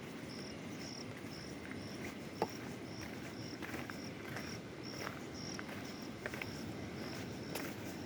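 Steady rush of a flowing mountain river with an insect chirping high and evenly, about twice a second. Scattered small clicks, one sharper knock about two and a half seconds in.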